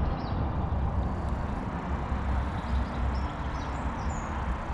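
Steady low outdoor rumble, such as wind on the microphone or distant traffic, with a few faint short bird chirps now and then.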